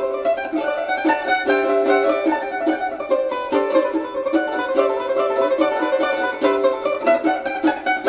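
Balalaika strummed, playing a melody in quick repeated strokes with bright, high-pitched notes.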